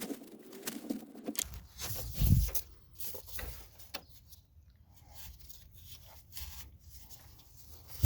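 Small metal parts and hand tools being handled at close range: scattered clicks and clinks, a scraping rub in the first second or so, and one dull thump about two seconds in.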